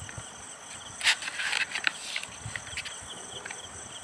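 Hands rubbing and kneading two-part epoxy putty on a sheet of cardboard, a scraping rustle about a second in that lasts about a second. Crickets chirp steadily behind it.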